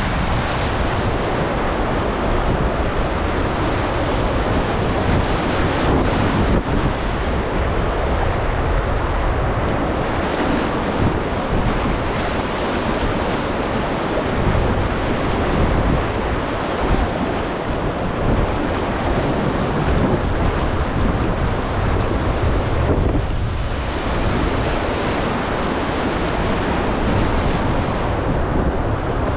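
Whitewater rapids of a river at high water, rushing and splashing around a kayak as it runs through waves, with wind buffeting the camera microphone.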